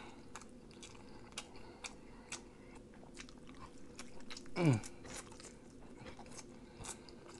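Close-miked eating: quiet chewing and biting with small crunches and wet mouth clicks. A short falling vocal sound comes about halfway through.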